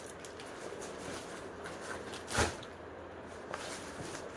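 Clear plastic packaging bag crinkling as it is handled, with one brief louder rustle about two and a half seconds in.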